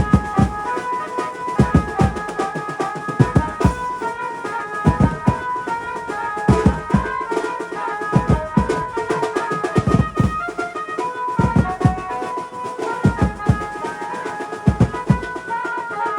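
Garba dance music with a steady drum beat under a melody of held notes.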